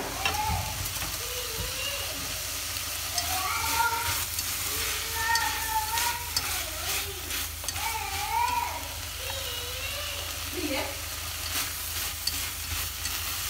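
String beans, meat and prawns sizzling as they are stir-fried over high heat in a stainless steel pot, with wooden chopsticks clicking against the pot as they toss the food. A voice is faintly audible in the background.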